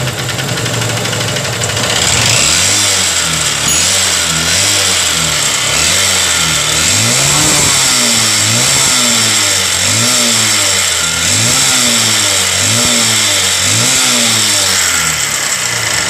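Honda CB Shine's single-cylinder four-stroke engine idling, then from about two seconds in revved in quick blips, its pitch rising and falling about once a second. It is running with the oil-check bolt on the cylinder head open, and no oil is reaching the head, which the mechanic takes for the cause of its abnormal engine noise.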